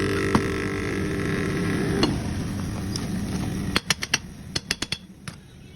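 A steady mechanical hum fades out about two seconds in. Then comes a quick, irregular run of about ten sharp metallic clicks and clinks, as of the restored scissors' steel blades being worked and handled.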